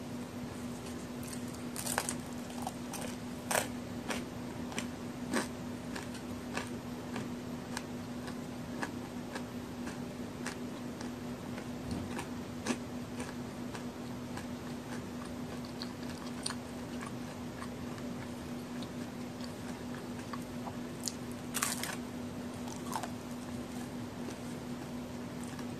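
Close-up crunching of a person biting and chewing a large homemade chocolate-and-raisin cookie, crisp and crumbly. The loudest crunches come from bites a few seconds in and again near the end, with softer crackling of chewing between.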